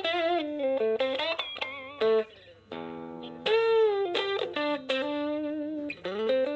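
Electric guitar played through a Jam Jar Amp mini amplifier kit and recorded direct: single-note lead lines with bends and vibrato, a held note about halfway through, then quick runs.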